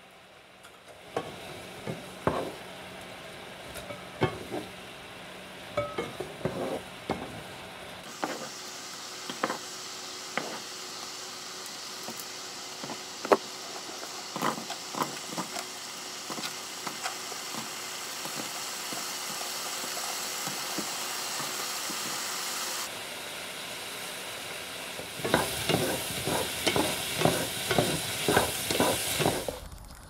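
Beef and then sliced okra frying in a nonstick pan: a steady sizzle with wooden spatulas scraping and knocking against the pan. The sizzle becomes a louder, steadier hiss in the middle, and near the end comes a quick run of stirring clatter.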